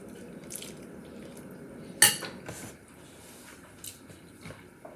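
Mouth sounds of chewing a big forkful of instant ramen noodles, with a sharp click about two seconds in and a few fainter ticks.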